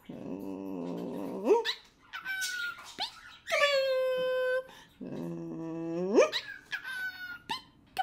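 A pet cockatiel whistling and chirping in short calls, mixed with a woman's low hummed coos that rise in pitch at the end.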